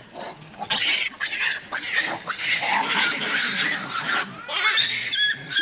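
Monkeys fighting: a rapid run of harsh, noisy screams and squeals that starts about a second in.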